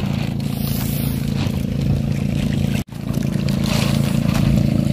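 Outrigger fishing boat's engine running steadily at cruising speed, with a brief gap a little under three seconds in.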